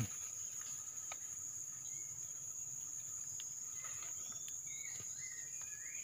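Steady high-pitched insect drone, with a few short whistled bird calls, sliding up and down in pitch, in the second half.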